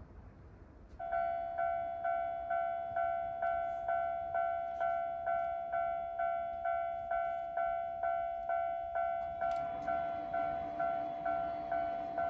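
Japanese level crossing warning bell starting about a second in and ringing a steady two-tone "kan-kan", about two strikes a second, each fading before the next. A low steady hum joins near the end.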